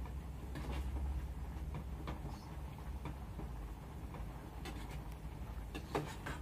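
A metal spoon scraping and clinking against a small metal saucepan while instant noodles with vegetables and egg are stirred, in scattered short knocks, the sharpest about six seconds in, over a low steady rumble.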